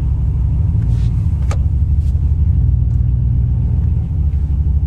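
Truck engine and road noise heard inside the cab while driving, a steady low rumble. One light click about a second and a half in.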